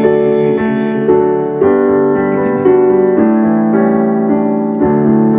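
Piano playing slow, sustained hymn chords, a new chord struck every second or so, as an instrumental interlude between sung lines of a hymn.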